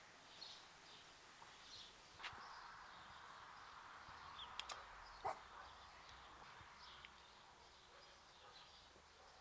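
Faint birds chirping in short repeated calls, with a few sharp clicks around the middle.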